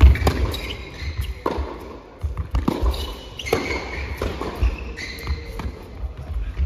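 Tennis rally on an indoor court: a run of sharp racket strikes and ball bounces echoing in a large hall, mixed with brief squeaks of tennis shoes on the court surface.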